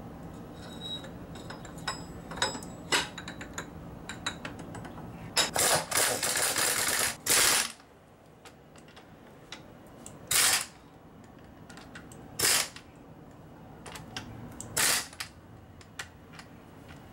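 Pneumatic impact wrench working a nut on a Dana 44 front axle. A few light metal clicks and taps come first, then about two seconds of the wrench hammering in quick repeated bursts, then three short blips about two seconds apart.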